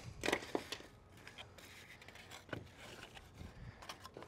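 Faint scraping and a few scattered light knocks as gloved hands work along a wooden bulkhead panel on a workbench.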